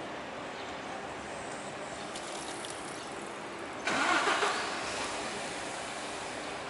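Steady road traffic hum, with a sudden louder rush from a nearby vehicle about four seconds in that fades away over about a second.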